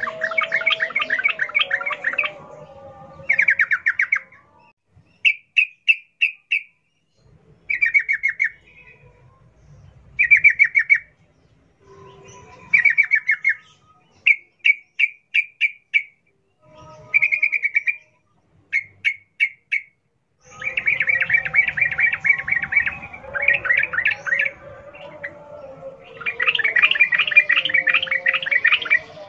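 Yellow-vented bulbul singing in a rapid, wild-style 'ropel' delivery. It gives short, fast trills of quick notes separated by brief pauses, and near the start and from about two-thirds of the way through the trills run together into dense, continuous chatter.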